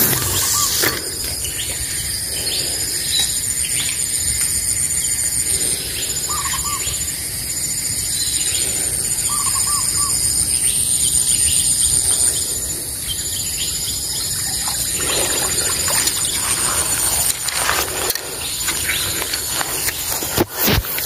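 Outdoor ambience: birds chirping a few times over a steady, high-pitched drone and a pulsing background call. A few short knocks, mostly near the end.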